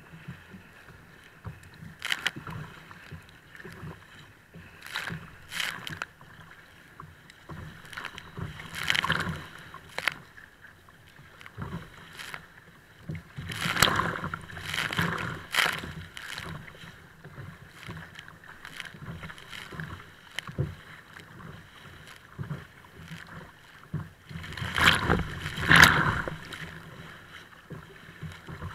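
Kayak hull slapping through choppy waves: water splashing and rushing along the bow in irregular surges, loudest about halfway through and again near the end.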